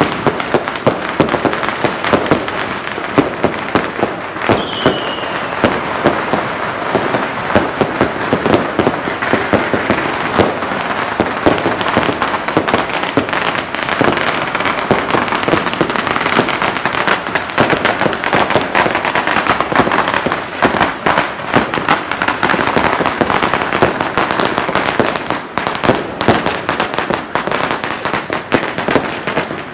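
Dense, continuous crackling and banging of firecrackers and fireworks going off, with a short falling whistle about four seconds in.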